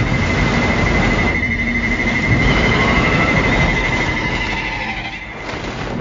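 King Ghidorah film sound effect: a loud, dense rumbling noise with a steady high whistle running through it and faint gliding tones, dying down near the end.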